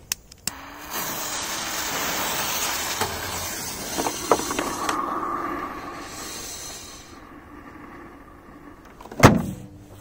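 Smoke-ball fuses lit and hissing steadily for several seconds, with a few small clicks. Then the plastic lid of a top-loading Whirlpool washing machine slams shut with one loud bang about nine seconds in.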